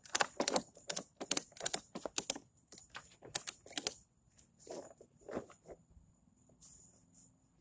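Ratchet tie-down strap being cranked tight, its ratchet clicking repeatedly, often two clicks at a time. The clicks come steadily for about four seconds, then thin out to a few softer ones.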